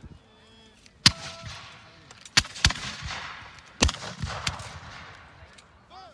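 Black-powder flintlock muskets firing blanks in scattered single shots: about five sharp reports, each trailing off in a short echoing rumble.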